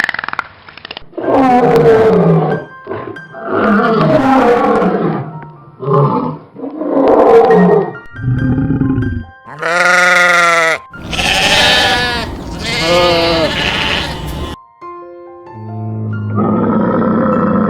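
A series of separate animal calls, grunts and roars lasting about a second each, with a long pitched call about ten seconds in. Steady musical tones take over near the end.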